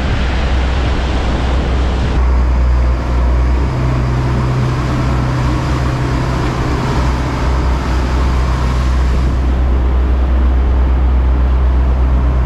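Twin boat engines running steadily under way, a deep low hum with a steady drone, over a rush of wind and water. The upper hiss drops back about two seconds in and again near the end.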